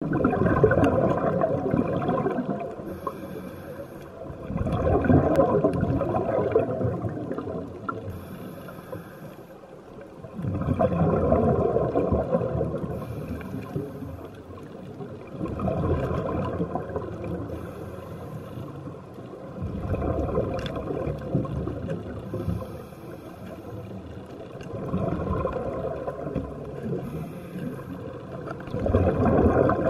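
Scuba diver breathing through a regulator underwater: a short, high hiss on each inhale, then a long gurgle of exhaled bubbles, about every five seconds.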